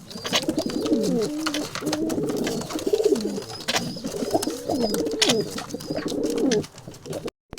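Domestic pigeons cooing, one curving coo after another, with scattered sharp clicks; the sound drops out for a moment near the end.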